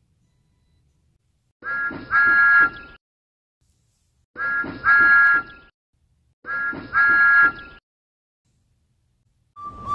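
Thomas the Tank Engine's whistle, sounded three times, each a short toot followed by a longer one. A different, lower single-note whistle starts right at the end.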